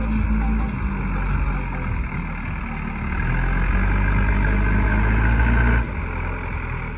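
Diesel engine of a JCB backhoe loader working under load, growing louder about three seconds in and easing off abruptly about a second before the end.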